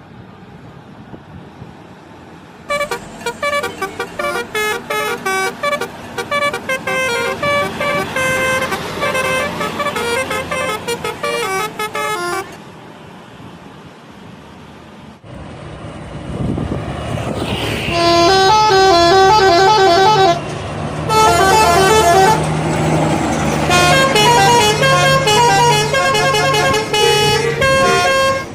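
Indonesian bus telolet horns, multi-trumpet musical air horns, playing quick melodies of short stepped notes. One horn plays from about three seconds in to about twelve. After a break, a bus engine hums and rises, and a louder horn melody plays from about eighteen seconds on with a brief pause near twenty.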